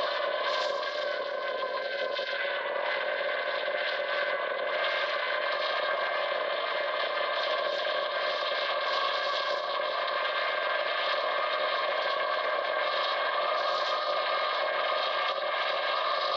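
Small drone's electric motors and propellers whining steadily: several steady tones over a hiss, with no break.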